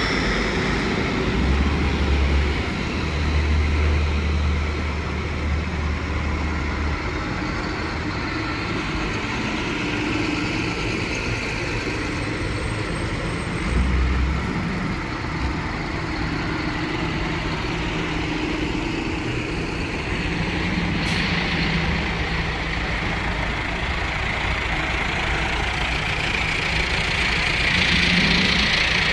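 A line of farm tractors, a green John Deere 7530 among them, driving slowly past one after another with their diesel engines running. A deep low engine note is loudest in the first few seconds, and a short sharp click comes about two-thirds of the way through.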